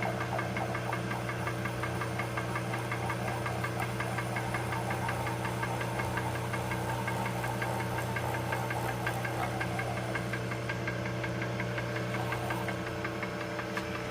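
Metalworking machine tool running steadily, a constant hum with several fixed tones; the sound eases slightly near the end.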